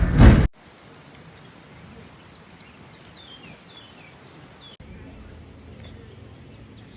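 Loud train running noise that cuts off abruptly about half a second in, then quiet outdoor ambience with a few short, high, falling bird chirps.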